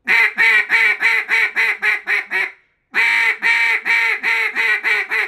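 Duck call blown in a descending greeting call: two runs of about ten quacks each, separated by a short break about two and a half seconds in. Each run opens with a longer quack, and the following notes get steadily shorter and quicker.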